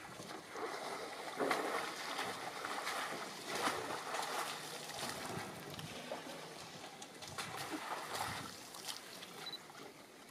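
Water splashing and swishing in irregular bursts as an African elephant pulls grasses and lilies from the river and swishes them through the water while feeding.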